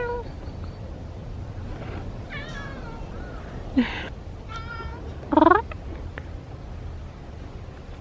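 A cat meowing several times in short calls, the loudest a rising meow a little past halfway.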